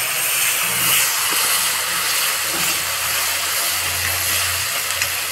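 Tomato purée sizzling and bubbling in hot oil in an iron kadhai as a steady hiss, with a spoon stirring it.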